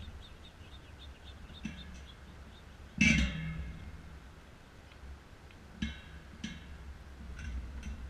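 A gray squirrel feeding on sunflower seeds inside a metal bird feeder makes scattered small clicks. About three seconds in comes one sharp knock that sets the feeder's metal frame ringing briefly.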